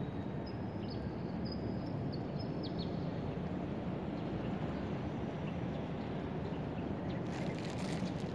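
Steady low city background hum, with a few short, high bird chirps in the first three seconds and a brief patch of rustling clicks near the end.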